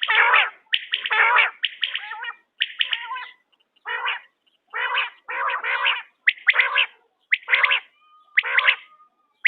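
Quail calling: a steady string of short, harsh calls, about one or two a second, with brief gaps between them.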